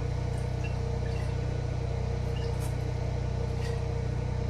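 Backup generator engine running steadily, a low even hum that holds constant throughout, with a few faint ticks over it.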